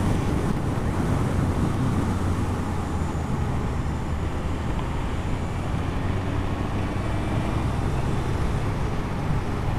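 Motorcycle riding at a steady cruising speed: a constant low engine hum mixed with wind and road noise on the bike-mounted camera's microphone.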